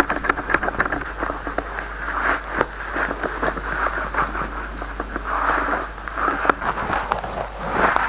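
Silicone spatula stirring a thick, floury dough mixture in a glass bowl as flour is poured in, with irregular small taps and scrapes against the glass.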